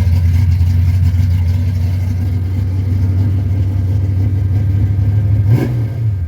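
Car engine fast-idling steadily on the choke through a freshly fitted dual exhaust: 2.5-inch pipes with an H-pipe and Flowmaster Super 10 mufflers, dumping ahead of the rear axle. A short blip about five and a half seconds in, then the idle settles lower near the end as the choke starts to kick off.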